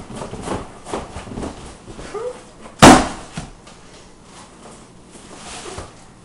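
Cardboard box and packaging being handled during unpacking, with scattered rustles and knocks. About three seconds in comes a single loud, sharp bang, followed by a smaller knock.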